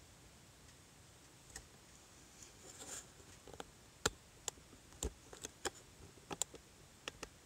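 Faint, irregular sharp clicks and ticks, about ten of them spread over several seconds, over a low steady hiss.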